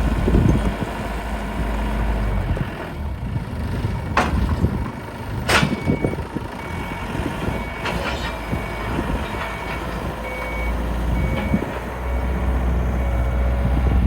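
Forklift engine running, with its reversing alarm beeping steadily at about one beep every three-quarters of a second through the second half. Two sharp metallic knocks come a second and a half apart before the beeping starts.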